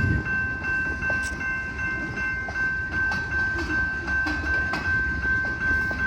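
Freight train rolling slowly past, with a steady low rumble and scattered sharp clicks of wheels over rail joints. A steady high-pitched whine holds throughout.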